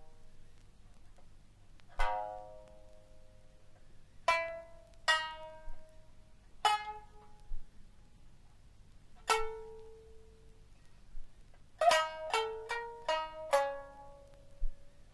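Sangen (三絃, three-stringed lute) plucked in single, widely spaced notes that ring and fade, then a quick run of about seven notes near the end.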